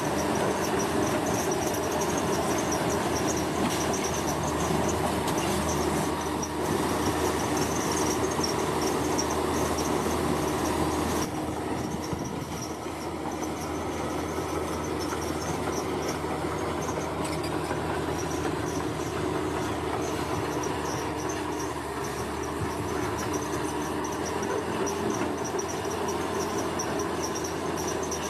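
Heavy diesel construction machinery running steadily, with a constant low rumble that eases slightly partway through, and insects chirring high above it.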